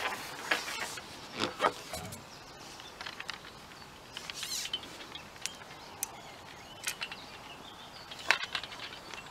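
Handling noise from a fishing pole and tackle: scattered light clicks, taps and rubs over a quiet outdoor background. The sharpest click comes near the end.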